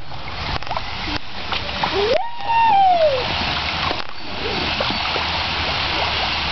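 Water splashing in an inflatable kiddie pool, a steady noisy rush throughout. About two seconds in, one high call from a voice holds and then falls in pitch.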